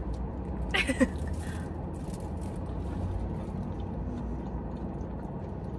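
Steady low hum inside a car's cabin, with a brief vocal sound about a second in and a few faint clicks of eating.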